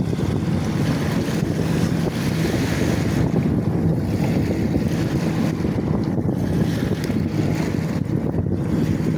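Wind buffeting the microphone in a steady, choppy low rumble, with surf washing in the background.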